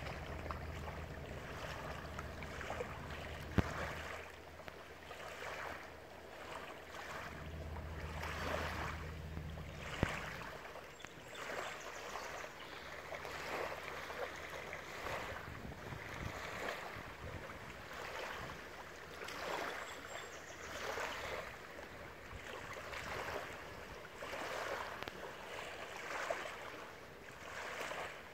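Small lake waves lapping and splashing against a floating dock in repeated swells every second or two. A low steady hum, like a boat engine, sounds for about the first ten seconds and then fades. Two brief knocks come early on and about ten seconds in.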